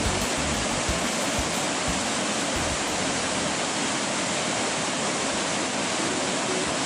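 White-water rapids of a river rushing over rocks: a steady, even rush of water.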